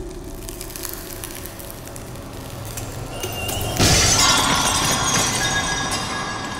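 Dark cinematic hybrid score, then about four seconds in a sudden loud shattering, glass-like impact whose high ringing shimmer fades away.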